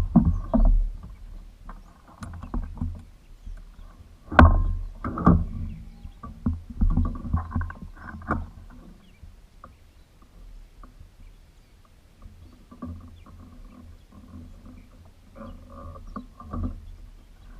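Irregular knocks and low rumbling on a small fishing boat, with a sharp knock about four seconds in. The knocks grow sparser and quieter after about eight seconds.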